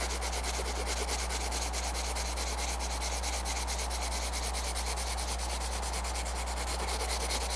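Colored pencil shading on paper in quick back-and-forth strokes: a steady, rapid scratching.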